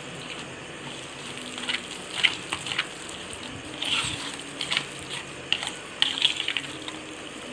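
Spoon stirring a thick, sticky, crumbly mixture of cooked pumpkin, jaggery, semolina, flour and crushed peanuts in a stainless steel bowl: irregular squelching and scraping, with short scrapes of the spoon against the bowl.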